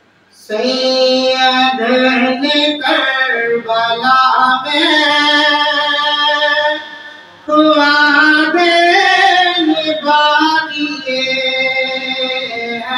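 A man singing a naat, an Islamic devotional poem, solo without instruments, in long held lines that begin about half a second in and break off briefly about seven seconds in.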